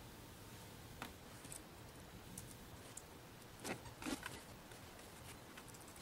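Quiet room tone with a few faint clicks and rustles of handling, the two loudest a little after three and a half and about four seconds in.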